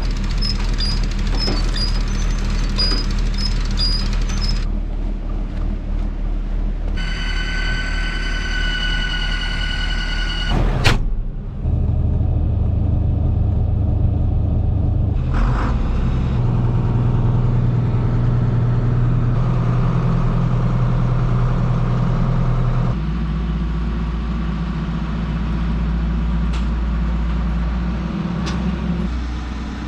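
Heavy farm vehicle engines running, the sound changing abruptly several times. A steady high whine lasts about four seconds starting some seven seconds in, and ends with a sharp knock.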